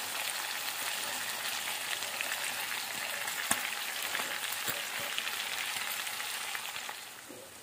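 Chunks of meat and freshly added sliced onion frying in fat in a cast-iron skillet: a steady sizzle with a few sharp crackling pops, easing a little near the end.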